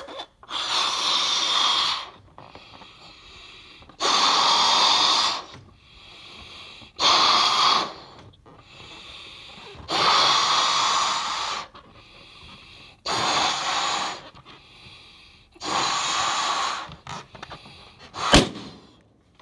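A person blowing up a balloon with six long, forceful breaths into it, each about a second long with quick breaths in between. Near the end comes a single sharp bang, the loudest sound, which is the inflated balloon popping.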